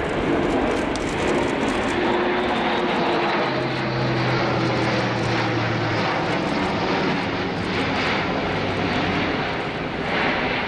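Airbus A400M Atlas turboprop airlifter flying past, its four Europrop TP400-D6 turboprops and counter-rotating propellers giving a loud, steady drone. A low humming tone stands out for a couple of seconds in the middle.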